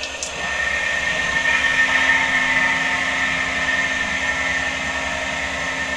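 Eberspacher D9W diesel water heater starting up before ignition: its electric pump running with a steady whine and hiss that builds over the first second, then cuts off suddenly at the end.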